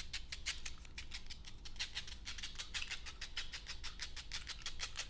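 Long fingernails tapping and clicking quickly and evenly, about eight to ten clicks a second.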